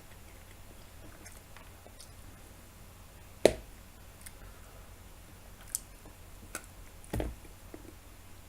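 Chewing a mouthful of raw button mushrooms: faint wet mouth clicks and smacks. A sharp click about three and a half seconds in is the loudest sound, and a short low thump follows about seven seconds in.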